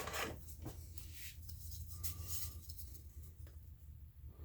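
Faint handling sounds of a hand-held ratchet: light rubbing and a few soft taps, over a low steady hum.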